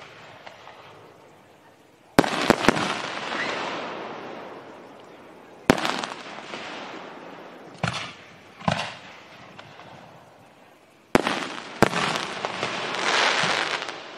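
Aerial fireworks bursting overhead: a series of sharp bangs, several in quick pairs, each followed by a long fading crackle, with the loudest crackle swelling near the end.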